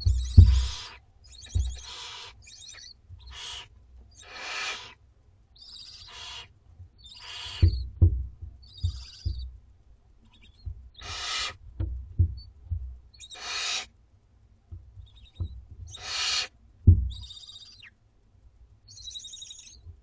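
Barn owlets giving repeated raspy hissing calls, each about half a second to a second long, the typical food-begging call of young barn owls, with a few thinner chittering calls mixed in. Low thumps and bumps come from movement in the nest box.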